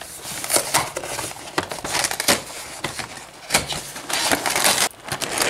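A cardboard cereal box being torn open and its inner bag crinkled: irregular crackling, tearing and clicking.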